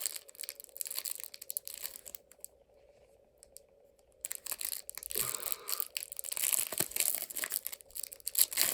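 Plastic foil wrapper of a trading-card pack crinkling and being torn open by hand, in two spells with a quieter pause of about a second and a half in the middle.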